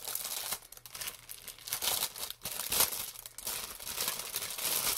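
Packaging wrapping crinkling and rustling in the hands as a product, a hand mirror, is unwrapped. The noise is irregular, with a louder crackle just under three seconds in.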